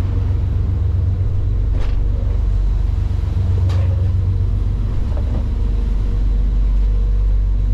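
Fishing boat's engine droning steadily as the boat runs, heard from inside the cabin as a loud low rumble. Two faint knocks come about two and four seconds in.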